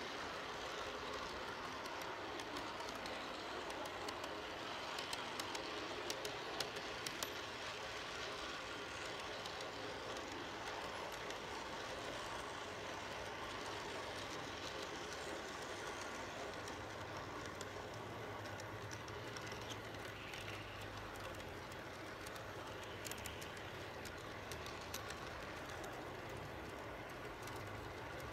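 G-scale model train running on outdoor track, heard from a camera riding on one of its cars: a steady rolling rumble of wheels and motor, with a few sharp clicks, most of them about five to seven seconds in.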